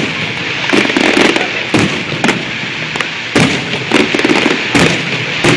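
Fireworks display: a rapid, irregular string of loud sharp bangs, several a second, over continuous crackling.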